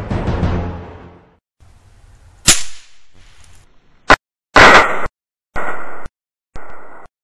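Music fades out, then a string of gunshots at a shooting range: a sharp crack about two and a half seconds in, another about a second and a half later, then several more loud shots in quick succession.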